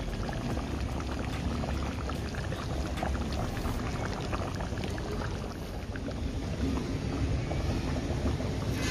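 Coconut-milk fish curry simmering in a wok, a steady bubbling with many small pops.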